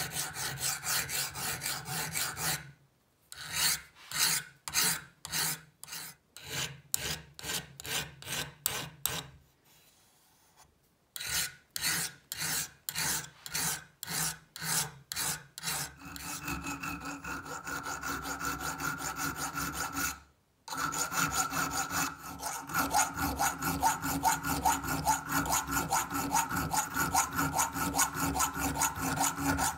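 Hand files rasping across the steel of an old HAZET open-ended wrench held in a vise, first a flat file and later a round file. The strokes come about two a second with a few short pauses, then quicker and unbroken toward the end, with a faint ring from the metal.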